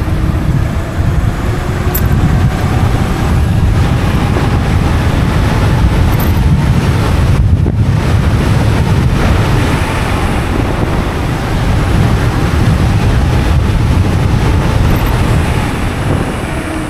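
Heavy wind rumble on the microphone while riding a homemade 72-volt, 3000-watt electric downhill bike at speed, with a faint motor whine underneath that slowly rises and falls in pitch.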